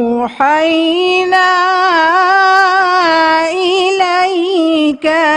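A young woman's high voice reciting the Quran in melodic tajwid style, holding long notes with ornamented, wavering pitch. There are brief breaks about half a second in and near the end.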